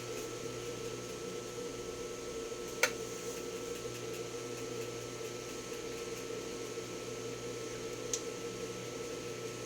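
Steady low electrical hum, with a single sharp click about three seconds in and a faint tick near the end.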